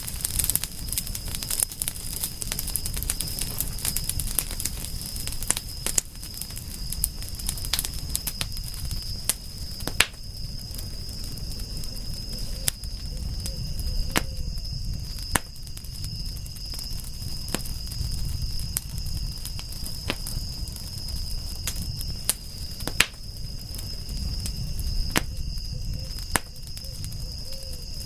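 Wood fire crackling and popping over a low steady rumble of flames, with sharp pops scattered irregularly and a few louder snaps. A steady high-pitched insect trill runs underneath.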